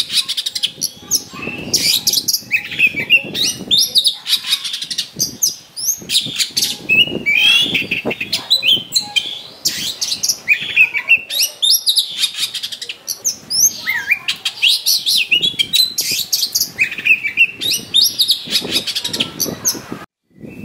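Oriental magpie-robin singing a loud, varied song of rapid whistles, trills and harsh notes in quick phrases with short pauses. It breaks off suddenly just before the end.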